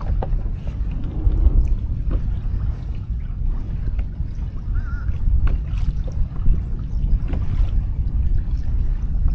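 Wind buffeting the microphone on a kayak, a steady low rumble, with a few light knocks and clicks from handling gear on the boat.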